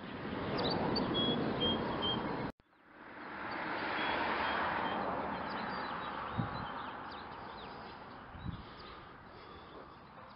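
Outdoor wind noise on the microphone with small birds chirping now and then. The sound cuts out for a moment about two and a half seconds in, then fades back up and slowly dies away.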